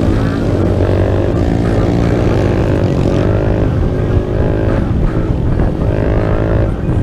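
Small single-cylinder minibike engine accelerating along the road, its pitch rising several times and dropping back at each gear shift.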